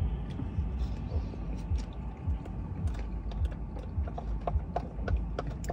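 Light, irregular clicks and taps of a plastic spoon in an ice-cream cup over a low, steady rumble.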